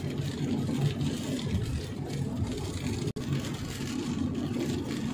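Steady road noise inside a moving car on a wet road: a low rumble of engine and tyres with a faint hiss of water off the tyres. The sound cuts out for an instant about three seconds in.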